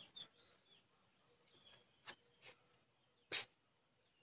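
Near silence, broken by a few soft taps, the loudest about three seconds in, with faint bird chirps.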